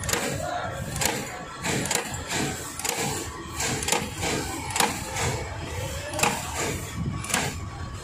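Terminal crimping machine stamping ring terminals onto wire ends, a sharp clack about once a second over a steady machine whine.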